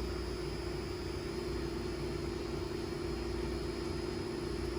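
Steady machinery hum: a constant mid-pitched tone over a low rumble, unchanging throughout.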